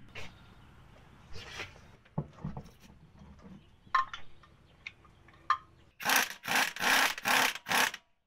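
Air impact wrench on a wheel's lug nuts, run in a series of short, loud bursts starting about six seconds in, after a few faint clicks of parts being handled.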